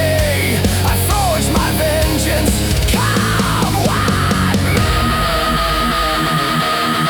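Heavy metal music: a lead line of bending, swooping notes over the band, settling about five seconds in into one long held high note.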